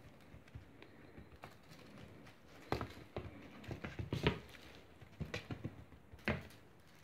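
Irregular light pats and thumps of a Bengal kitten's paws scampering and pouncing on a hardwood floor while it plays with a feather wand toy, with a few louder thumps in the middle and near the end.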